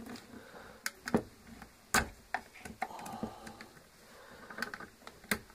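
Irregular small clicks and taps of plastic and metal parts as wire contacts are pulled off the brush block inside an opened belt sander's housing.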